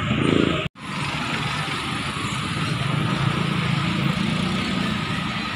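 Street traffic: engines of passing cars, vans and motorcycles running in a steady din. The sound cuts out completely for a split second just under a second in.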